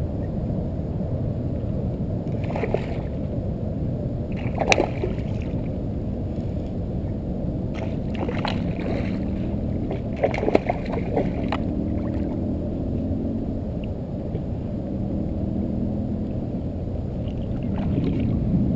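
Hooked speckled trout splashing at the water's surface beside a kayak as it is played in and landed, a handful of short sharp splashes spread through the first dozen seconds, over a steady low rumble.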